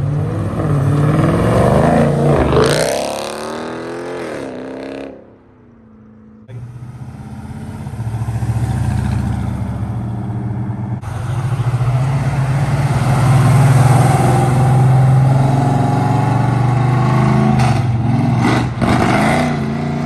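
A car engine revs up and falls back in the first few seconds. After a brief stretch of much lower sound, car engines run steadily, with another short rise in revs near the end.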